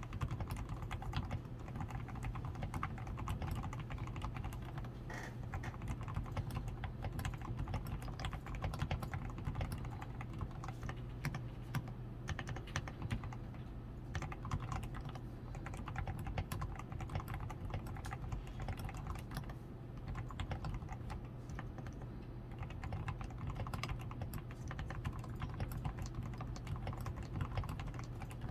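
Continuous typing on a DAREU A87 Pro mechanical keyboard that has been fully lubed with Krytox 105, tape-modded on the PCB, with foam-reinforced switches, XDA keycaps and lubed stabilizers: a steady, irregular stream of keystroke clacks over a low steady hum.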